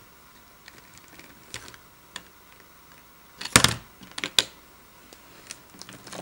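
Light plastic clicks and taps from a toy dump truck and plastic surprise egg being handled on a table, with a louder cluster of knocks about three and a half seconds in.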